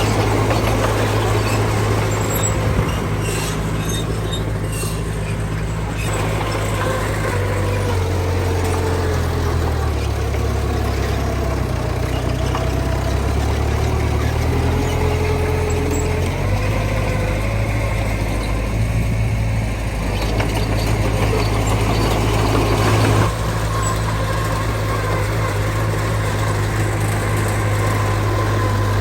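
Heavy diesel earthmoving machinery running, its low engine note shifting in pitch as the load changes, with a higher whine that wanders in pitch. A few knocks come about three to five seconds in.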